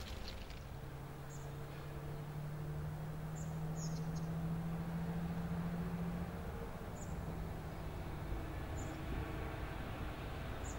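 Diesel engine of a Kaelble-Gmeinder DE 500 shunting locomotive running as the locomotive moves slowly, a steady low engine note over a rumble, strongest a few seconds in and easing off after about six seconds. A few short, high chirps sound over it.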